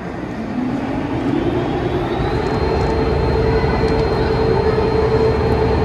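35-tonne overhead crane's hoist running as it lifts a railcar: a whine that rises in pitch over about the first two seconds, then holds steady while the sound grows louder.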